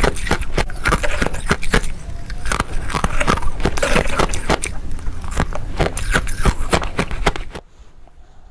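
Freezer frost being bitten and crunched close to the microphone: a rapid run of sharp, crisp crunches. The crunching stops abruptly about a second before the end.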